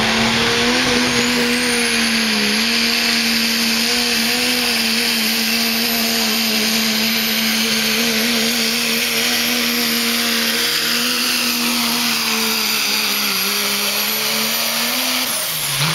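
Dodge Ram pickup's turbocharged diesel engine held at high revs under full load, pulling the sled, with a high turbo whistle over the steady engine tone. Just before the end the revs drop as the throttle comes off.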